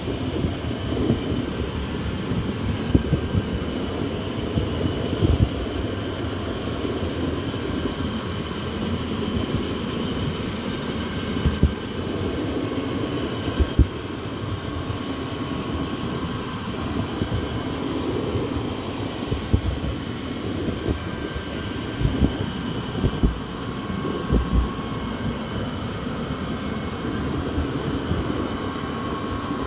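Train running along the track: a steady rumble with irregular low knocks every few seconds and a faint steady whine above it.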